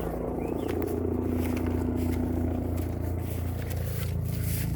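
A steady low mechanical drone, like a running engine or motor, with a few faint clicks and scratches over it.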